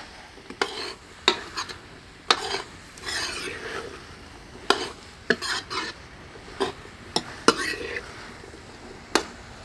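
Metal ladle stirring and scraping a potato and elephant foot yam curry in a metal kadhai, with irregular clinks of metal on metal over a light sizzle of the frying masala.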